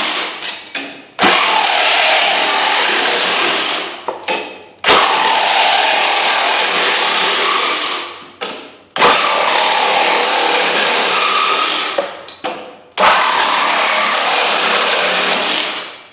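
Ridgid Gen5x 18-volt cordless reciprocating saw with a Diablo metal-cutting blade, in straight (non-orbital) stroke, sawing through thin sheet metal with a harsh rasping noise. The cutting comes in bursts of three to four seconds that start suddenly and die away, four times over.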